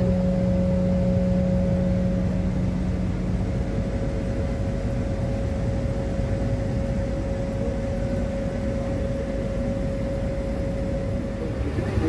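New Holland combine running while harvesting corn, heard from inside the cab as a steady low drone with a constant hum over it; a lower hum in it stops a few seconds in.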